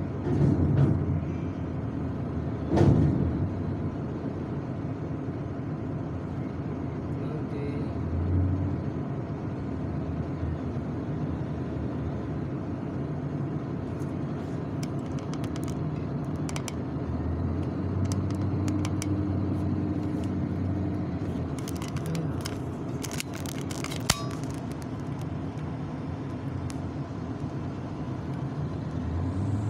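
Heavy diesel engines running in a steady low rumble, as an empty-container side lifter works an empty shipping container off a truck trailer and carries it to the stack. The engine surges twice, around 8 s and from about 17 s to 21 s. There is a loud knock about three seconds in and scattered metallic clicks past the middle.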